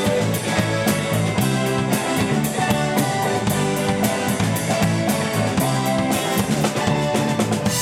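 Live rock band playing an instrumental passage between sung verses: drum kit, electric bass, electric guitars and keyboards together at a steady beat.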